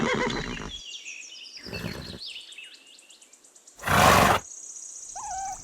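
Pony giving three breathy snorts, the loudest about four seconds in, with small birds chirping in the background.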